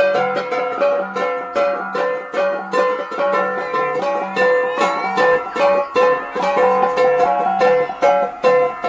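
Instrumental music of plucked strings, notes picked in a steady, even rhythm.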